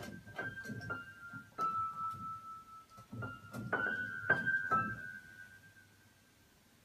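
Upright piano keys pressed by a cat walking along the keyboard: scattered, unmelodic high notes struck a few at a time, each ringing on, with the last notes dying away after about five seconds.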